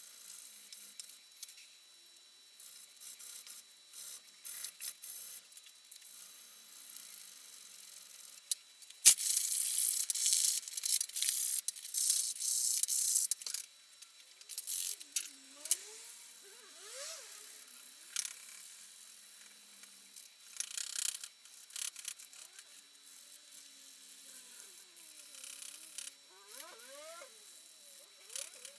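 Hand sanding of a burl birch knife handle clamped in a vise: repeated scraping strokes of abrasive on wood. A sharp knock about nine seconds in starts a louder, busier stretch of strokes lasting several seconds, and a few short squeaks come later.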